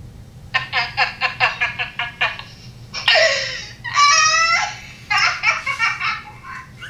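A young woman laughing hard in quick runs of ha-ha-ha bursts, breaking into a long high-pitched squeal about four seconds in, then more rapid bursts.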